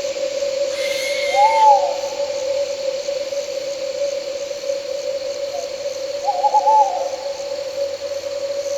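An owl hooting twice: a short arching call about a second and a half in, and a quavering call a little before the end. Under it run a steady humming drone and the constant high chirring of night insects and crickets.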